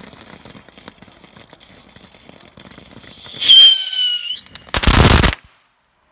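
Ground firework spraying sparks with a steady crackle and a faint whistle, then a loud whistle about three seconds in that falls slightly in pitch and stops after about a second. A loud half-second blast of noise follows and cuts off abruptly.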